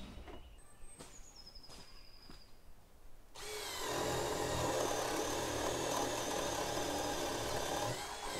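A few faint bird chirps, then about three seconds in a power tool starts up and runs steadily for about five seconds, easing off near the end.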